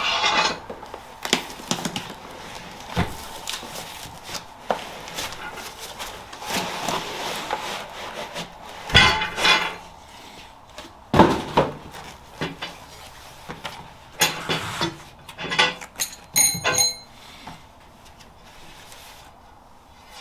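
Skottle parts and packaging being handled: rustling of wrapping, irregular knocks and clatters, and a brief metallic clink with a ringing tone about three-quarters of the way through.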